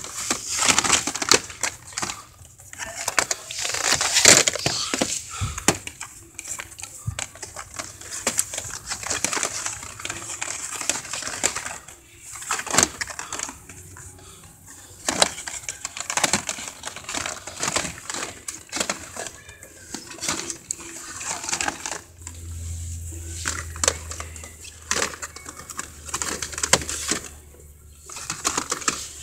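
Plastic blister-pack toy packages crinkling and clicking as they are flipped through and handled on a store peg, with irregular crackles and rubbing of the phone in the hand. A low steady hum joins about 22 seconds in.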